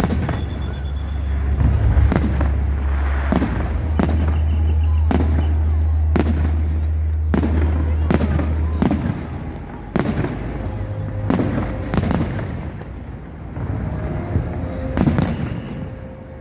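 Fireworks display: aerial shells bursting one after another, about a dozen sharp bangs each trailing off in an echo, over a steady low rumble that stops about halfway through.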